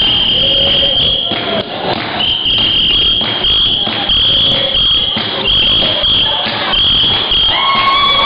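Sound of a Basotho women's traditional dance: a shrill, high, steady note held for about a second at a time and sounded again and again, over voices and sharp knocks. Near the end a lower, fuller held note joins it.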